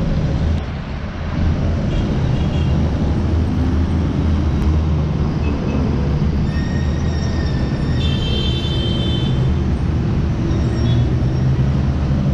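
Steady traffic noise from a busy city road below, a dense low rumble of many engines and tyres. About halfway through, two brief high-pitched tones rise out of it.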